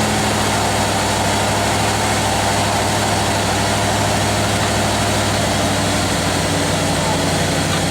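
Newly installed engine in a 1987 Ford Bronco idling steadily.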